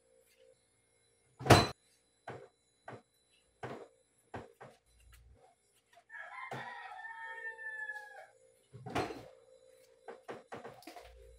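A single long animal call, lasting about two seconds, near the middle, amid a dozen sharp clicks and knocks. The loudest knock comes about one and a half seconds in.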